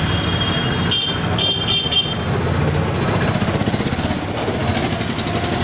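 Steady street traffic and engine rumble. A high-pitched ringing tone sounds in quick pulses, about four times, in the first two seconds.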